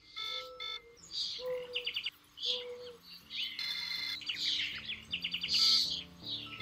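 Birdsong soundtrack of many chirps and trills. A low held note repeats three times in the first three seconds, and soft music with a slow melody of low stepped notes comes in about three seconds in.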